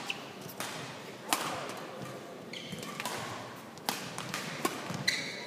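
Badminton rally: sharp cracks of rackets striking the shuttlecock, several in a few seconds, the loudest about a second in. Short high squeaks of court shoes on the court mat come between the hits.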